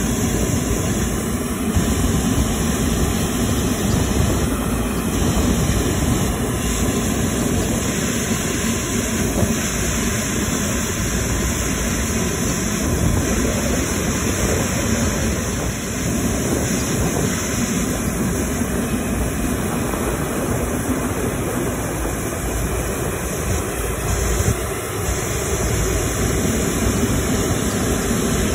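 Qantas Airbus A380's Rolls-Royce Trent 900 jet engines running at taxi power close by, a loud steady rumble and hiss that holds level throughout.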